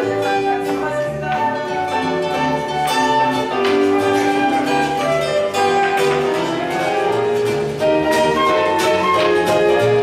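Acoustic string band playing: guitar and plucked double bass under a steady melody line.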